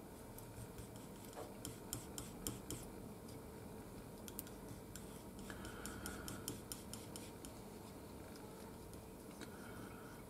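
Metal palette knife faintly scraping and tapping on a palette while mixing oil paint, working yellow and brown into a flesh colour. Irregular light clicks and scrapes, busiest in the first three seconds.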